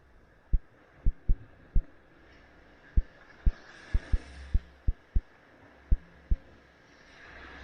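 Sea waves washing up a sandy beach, one wash swelling and fading about halfway through and another building near the end. About a dozen short, sharp low thumps come at irregular intervals and are the loudest sounds.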